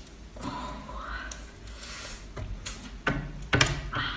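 Close-miked eating sounds: wet mouth noises of chewing, with a short rising hum of the voice about half a second in and several sharp clicks in the last second or so.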